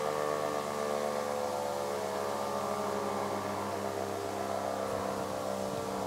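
E57 electromechanical rotary siren coasting down after its signal: a drone of many tones slowly falling in pitch as the rotor spins down.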